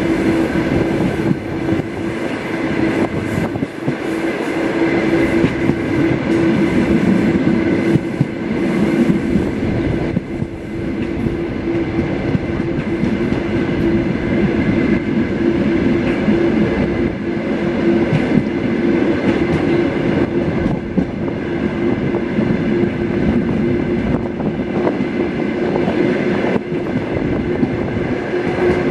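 Suburban train carriage running along the track: a steady rolling rumble of wheels on rails with a steady hum running through it.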